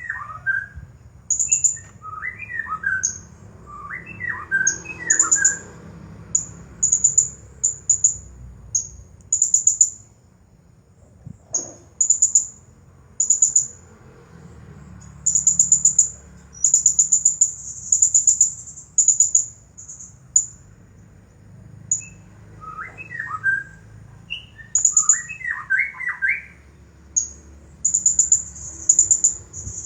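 Blue-crowned hanging parrot (serindit) calling nonstop: a long run of very high, thin, rapidly trilled chirps repeated every second or so. Clusters of lower, sliding whistled notes come in near the start and again about two-thirds of the way through.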